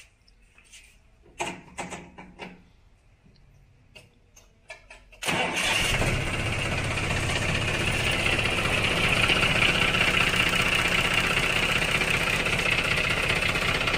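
A few faint clicks and knocks, then about five seconds in a John Deere 5310 tractor's three-cylinder diesel engine starts and catches quickly, running steadily at idle.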